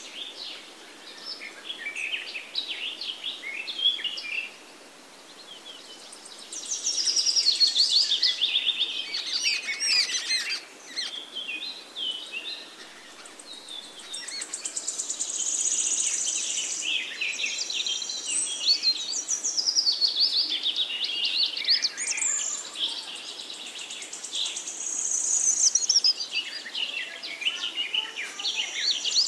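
Jungle babblers calling in overlapping bouts of high, squeaky chattering and quick trills, with short lulls between bursts.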